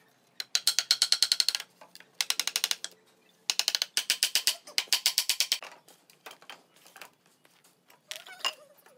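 Rapid runs of sharp metallic clicks, about ten a second, in four bursts of roughly half a second to a second each, followed by a few scattered knocks near the end.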